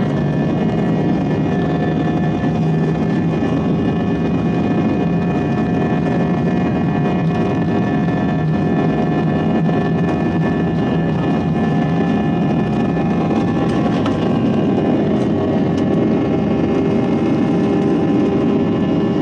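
Jet airliner cabin noise while taxiing, heard from inside the cabin: a steady engine hum with several steady whining tones over it, even in level throughout.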